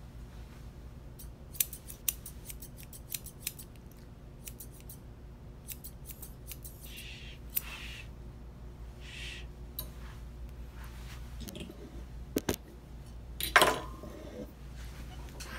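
Grooming shears snipping through a Bichon puppy's head and face hair in a run of quick, crisp snips, with soft swishes of a comb through the coat. There is a louder knock and rustle about two seconds before the end.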